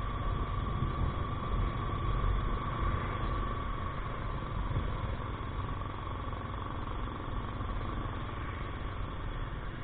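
Motorcycle riding slowly, at about 30 km/h: a steady engine drone mixed with road and wind rumble. A thin steady whine sits over it and fades out about halfway through.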